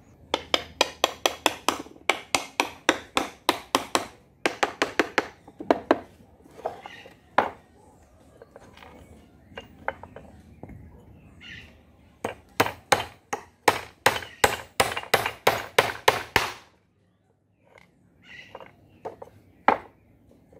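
Claw hammer driving nails into the wooden boards of a small hive box, in quick runs of rapid blows with pauses between.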